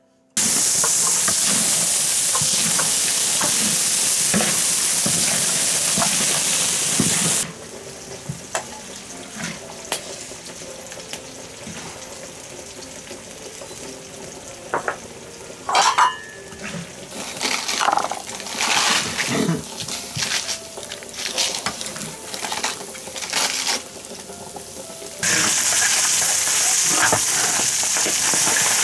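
Food sizzling loudly in a large iron wok for the first seven seconds or so, then a quieter stretch of a metal ladle scraping the wok and clinking against bowls as braised duck and potatoes are dished up. Near the end a loud sizzle starts suddenly as chopped cabbage is tipped into the hot oil.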